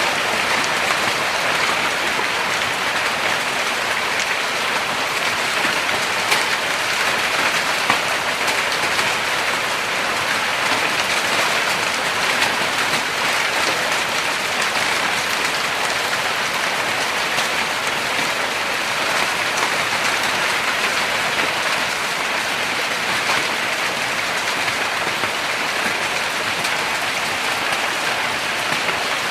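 Hailstorm downpour: heavy rain and hail pelting down steadily, a dense hiss dotted with many small sharp hits.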